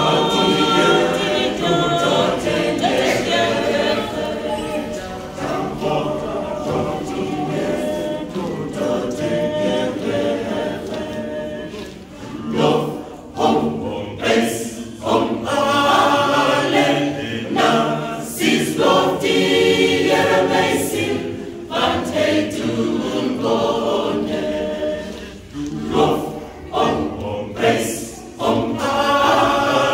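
Mixed church choir of men's and women's voices singing a hymn together in parts.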